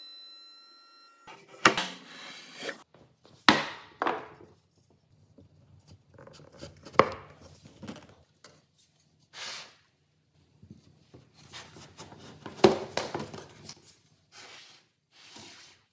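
Wooden pieces being handled, fitted together and set down on a workbench: a string of sharp wooden knocks and thuds with rustling between them, the loudest about two seconds in, at three and a half seconds, at seven seconds and near thirteen seconds. A faint steady tone is heard in the first second.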